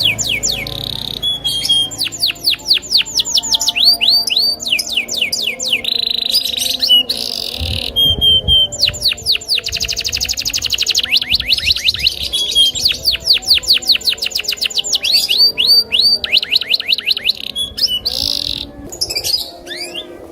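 Domestic canary singing a long, nearly unbroken loper song: fast trills, each a run of quick falling whistles, switching to a new trill every second or two with only brief pauses.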